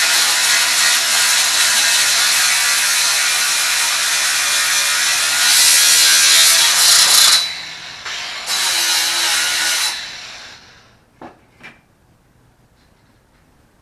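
Ryobi 18V cordless angle grinder running under load, a loud grinding hiss with a steady high whine. It eases off about seven and a half seconds in, bites again, then winds down about ten seconds in. Two light clicks follow.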